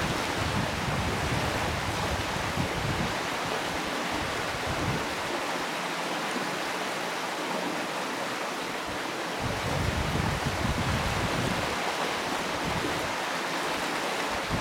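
Steady rushing of river water, with wind buffeting the microphone in low gusts that come and go.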